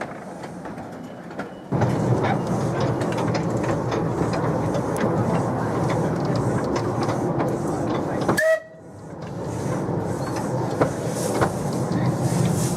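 Miniature railway train running on the track, with many short clicks of wheels over rail joints. The sound jumps up sharply near the two-second mark and briefly drops away past the eight-second mark before building again.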